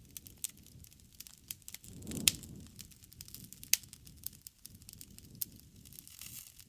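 Campfire burning, wood crackling with many small irregular snaps and two louder pops, one about two seconds in and one near four seconds, over a low rumble of the flames.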